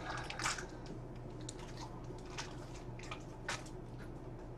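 Faint, scattered small clicks and rustles of objects being handled off to the side, over a low steady room hum.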